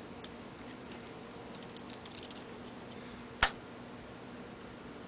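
Small clicks and taps of Allen keys and lock parts being handled, with one sharp click about three and a half seconds in, over a faint steady hum.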